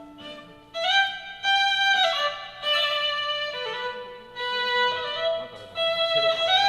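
A solo violin playing a melody of held notes in short phrases, with a slide between notes near the end, as its solo line in an instrument-by-instrument sound check.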